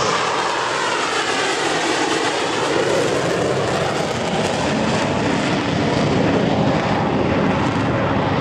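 Dassault Rafale fighter's twin M88 turbofan engines in a low, slow pass close overhead: a loud, steady jet roar with a sweeping whoosh through it in the first few seconds.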